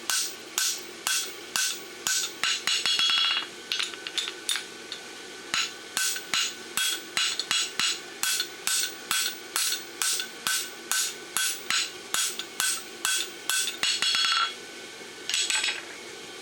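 A farrier's hand hammer striking a fuller on a hot steel bar shoe on the anvil, driving the nail groove to depth. Steady ringing blows come about two a second, broken a few times by quick runs of light ringing taps.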